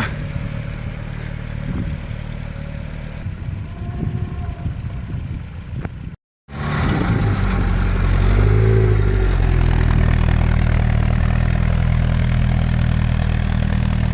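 The freshly rebuilt petrol engine of a Land Rover Series 2A running steadily. The sound drops out completely for a moment about six seconds in, then comes back louder, with a brief change in engine pitch shortly after before it settles again.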